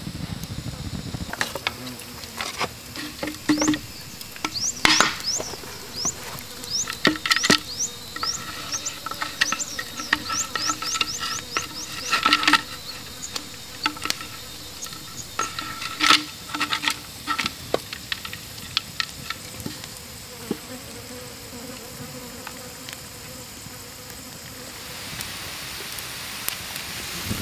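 Campfire of sticks and bamboo shoots crackling, with many sharp snaps and pops through the middle, over a run of quick, high, rising chirps.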